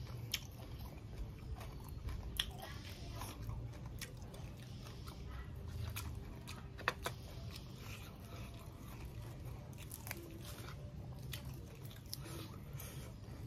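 A person chewing a mouthful of food with crisp fresh greens, with irregular crunches and wet mouth clicks and a few sharper bites.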